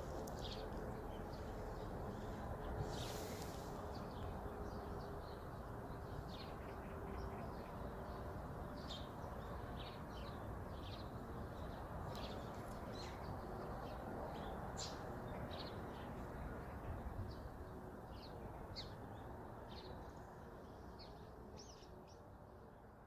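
Small birds chirping: many short high chirps, several every second, over a steady low background hiss, fading out near the end.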